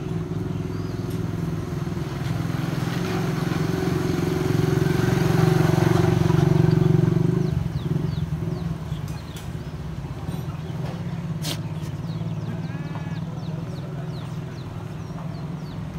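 A motor vehicle's engine runs steadily close by as a low hum. It grows louder over the first seven seconds, drops suddenly about seven and a half seconds in, then goes on more quietly. A single sharp click comes a little after eleven seconds.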